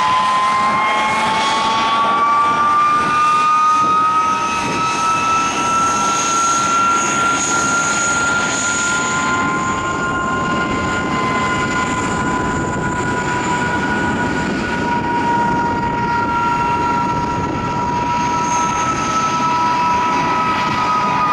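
de Havilland Vampire's Goblin turbojet running at taxi power: a steady jet roar with a high whine on top. The whine rises slightly a few seconds in, holds, and eases down near the end.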